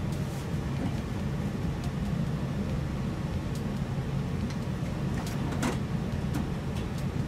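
Steady low hum, with a few faint clicks and scrapes about five to six seconds in.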